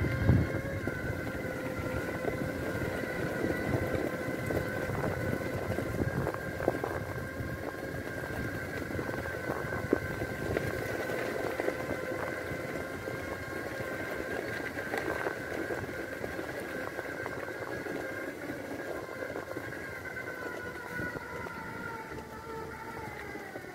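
Electric drive motors of a Magic Mobility Extreme X8 power wheelchair whine steadily at cruising speed, over the crunch and rumble of its tyres on a gravel track, with an occasional knock from a bump. Near the end the whine falls in pitch as the chair slows.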